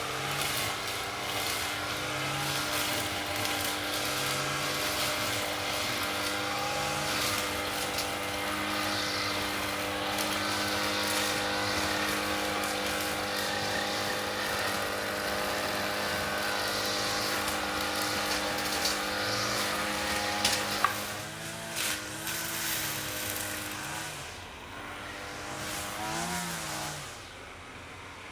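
Lawn mower engine running steadily; about two-thirds of the way through, its note starts to waver up and down and the sound grows quieter toward the end.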